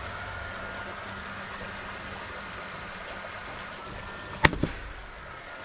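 A framing nailer fires once about four and a half seconds in, a sharp crack followed a moment later by a smaller knock, as it drives a nail into the timber framing. Under it is the steady faint wash of a creek.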